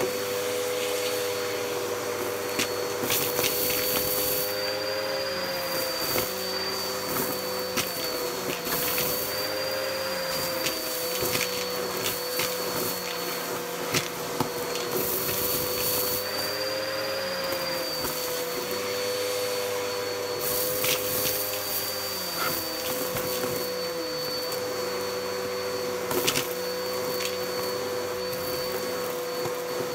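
Bissell bagless upright vacuum running through its hose and crevice tool, sucking up a pile of carpet debris. A steady motor whine dips in pitch and recovers each time the nozzle is pushed into the pile, with repeated crackles and rattles of debris rushing up the hose.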